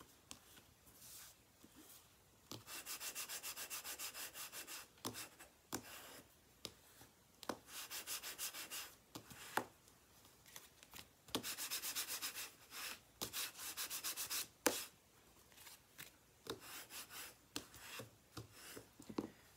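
Bone folder burnishing glued-together layers of cardstock: several runs of quick back-and-forth rubbing strokes, with a few sharp taps in between.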